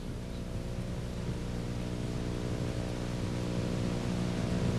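Truck engine running steadily at idle, a low even hum that grows slightly louder across the few seconds.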